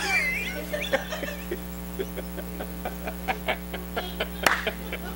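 Steady electrical mains hum from the sound system, with a scatter of short clicks and one sharper click about four and a half seconds in.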